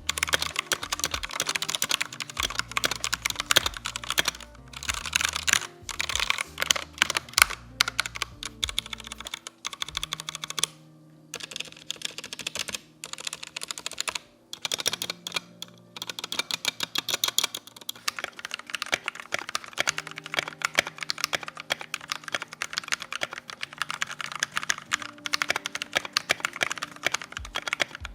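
Fast, continuous typing on a mechanical keyboard with Kailh Red linear switches: rapid key clacks, with short breaks about ten and fourteen seconds in. Soft background music plays underneath.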